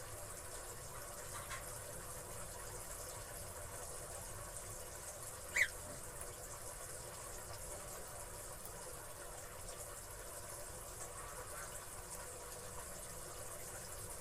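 Oriental magpie-robin giving one short, sharp call about five and a half seconds in, with a fainter call near the start, over a steady hiss.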